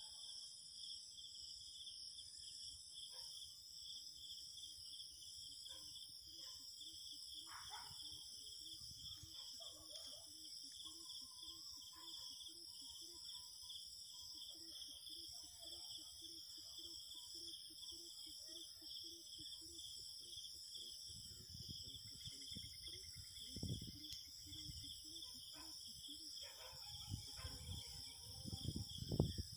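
A steady, faint chorus of insects trilling throughout. A row of soft, evenly spaced low pulses runs through the middle. Low rustling and bumping, louder near the end, comes from the grass and the handled net.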